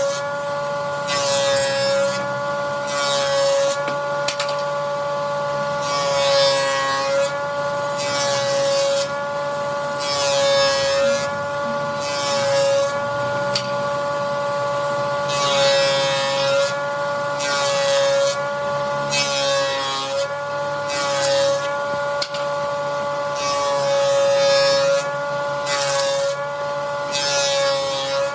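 Electric woodworking power tool running with a steady motor whine, worked against wood in repeated strokes roughly every second and a half. Each stroke adds a rasping cut and pulls the motor's pitch down slightly under load.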